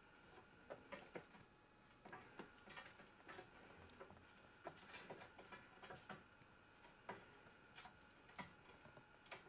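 Faint, irregular clicks and taps of a young red squirrel's claws on a wire cage grid as it clambers about.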